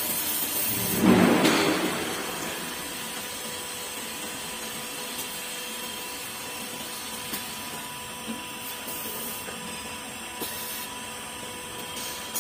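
Automated circumferential welding lathe running idle before the weld, a steady machine hum with two faint steady whining tones. About a second in, a brief loud hissing rush rises over it and fades within a second.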